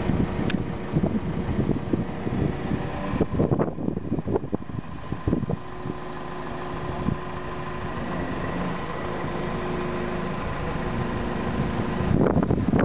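Heavy mobile crane's diesel engine running steadily with a constant hum. Wind buffets the microphone near the end.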